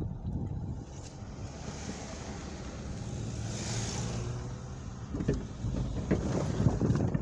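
Car driving on a wet road, heard from inside the cabin as a steady low rumble. An oncoming car's tyres hiss past about halfway through, and a run of knocks and bumps follows near the end.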